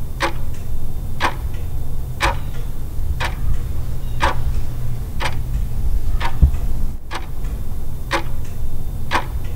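Clock ticking, one sharp tick about every second, over a steady low hum.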